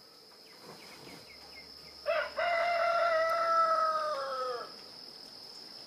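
A rooster crows once: a short first note, then a long held note that falls away at the end. The crow lacks the final note heard in the crow of the German travellers' own roosters.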